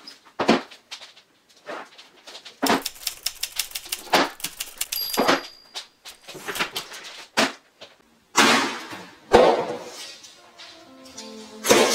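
Plastic paint tubs being set down one after another on a laminate floor: a run of knocks and clacks, with their plastic handles rattling. Later comes a longer rustle as a plastic-wrapped protective dust sheet is put down, and music starts near the end.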